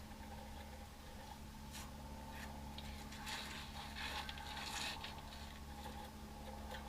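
Faint scraping, rustling and a few light clicks over a steady low hum, busiest about three to five seconds in.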